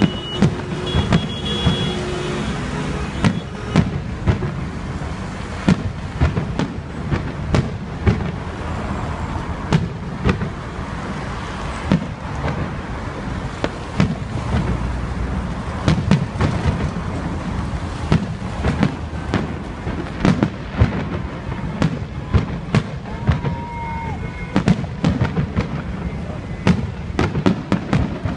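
Aerial fireworks bursting overhead in an irregular run of bangs, at times several a second, over a steady low background rumble.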